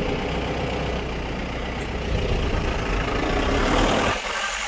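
Steady engine and road rumble heard inside the cabin of a running passenger vehicle. About four seconds in, the low rumble cuts out abruptly.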